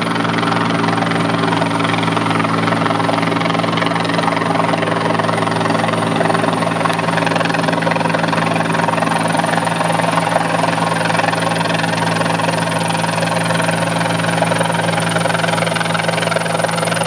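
Agusta-Bell 212 helicopter hovering close by, its two-bladed main rotor and twin turboshaft engines running steadily and loudly.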